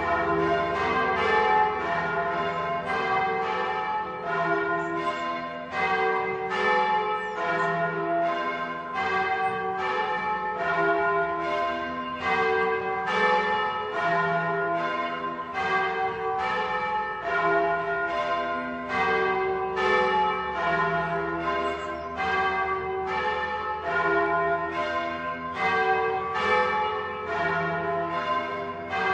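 Church bells rung in the Bolognese manner: several bells of different pitch struck one after another in a rapid, even, patterned sequence, each stroke ringing on into the next.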